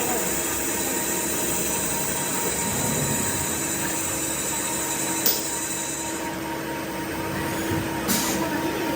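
Steady hum and rumble of workshop machinery, with a sharp metallic click about five seconds in and a brief hiss near the end.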